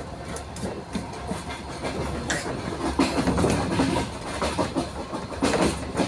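Train running along the line: a steady rumble and rushing noise, with the wheels clicking over rail joints, the loudest clicks about two, three and five and a half seconds in.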